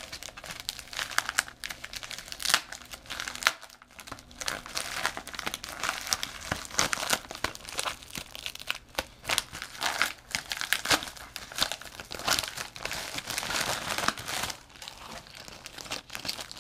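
A padded bubble-mailer envelope being torn open and crumpled by hand, with irregular crinkling and tearing of its paper and plastic bubble lining.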